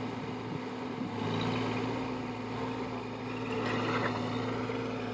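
Wacker Neuson 803 mini excavator's diesel engine running steadily, picking up slightly about a second in.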